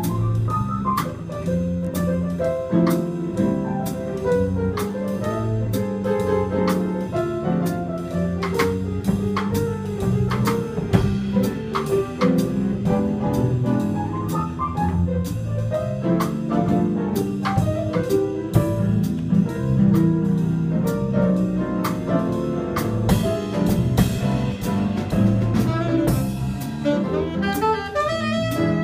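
A small jazz band playing live: saxophone lines over piano and a drum kit, with steady cymbal strokes keeping time.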